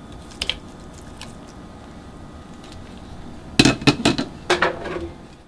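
Raw shrimp being scraped from a spatula into a nonstick pan of melted butter, with a few light clicks about half a second in. A burst of clattering of utensil against pan follows about three and a half seconds in.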